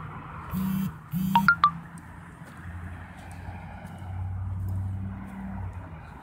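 Road traffic, with a vehicle passing by in the second half, its low hum swelling and fading. About half a second in come two short bursts of noise with a low hum under them, followed by three quick high beeps.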